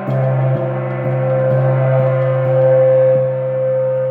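A moon gong ringing with a sustained, shimmering hum, lightly re-struck several times so that the tone keeps swelling.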